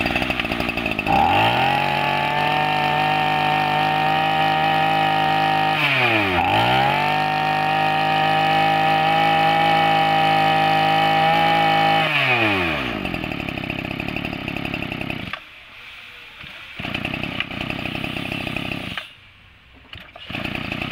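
Small two-stroke Tanaka brush-cutter engine pull-started, climbing to a high, steady rev. Its pitch dips and recovers once about six seconds in, then winds down about twelve seconds in, followed by lower, uneven running that cuts out and returns.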